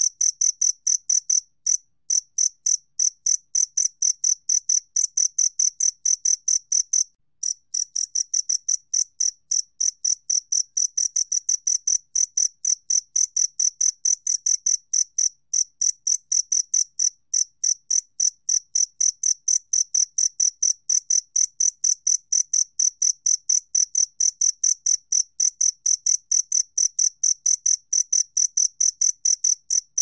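Two-spotted cricket (Gryllus bimaculatus) chirping at 28 °C: a fast, even run of high-pitched chirps, about four a second, with one brief pause about seven seconds in.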